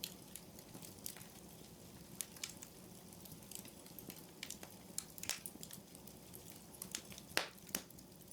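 Faint fire crackling: irregular snaps and pops over a low steady hum, the loudest snap about seven seconds in.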